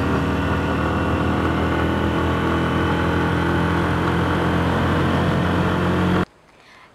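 Engine and road noise heard from inside a moving passenger vehicle: a steady low hum under an even rushing noise, which cuts off suddenly near the end.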